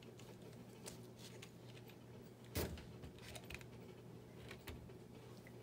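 Faint clicks and light knocks of a small plastic toy-truck kit chassis with rubber tyres being handled and turned over, with one louder knock about two and a half seconds in.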